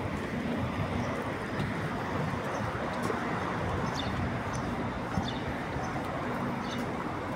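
Footsteps on stone paving, light clicks every half second to a second, over steady street noise.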